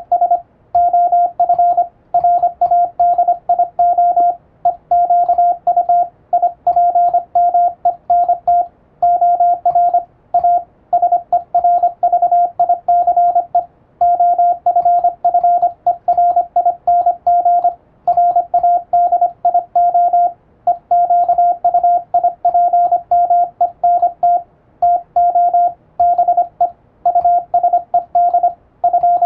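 International (Latin-alphabet) Morse code keyed on an electronic keyer: a single mid-pitched tone sounding in dots and dashes, with short gaps between letters and longer gaps between words, spelling out a radiotelegram-style practice text.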